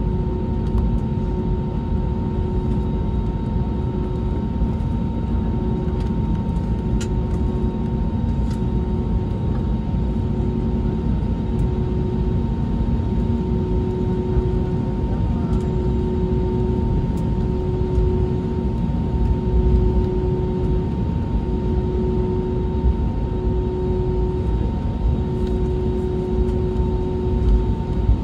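Cabin noise of an Airbus A320neo taxiing on its Pratt & Whitney geared turbofans at idle: a steady low rumble with a constant hum. Over it, a lower tone pulses on and off about once a second.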